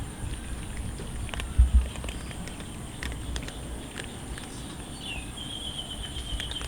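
Cats eating, with the scattered small clicks of chewing and crunching food. There is a low thump about a second and a half in, and a high, pulsing trill starts about five seconds in.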